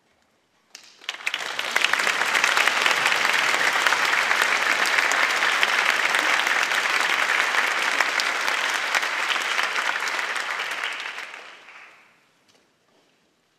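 Audience applauding in a concert hall, dense steady clapping that starts about a second in and dies away near the end.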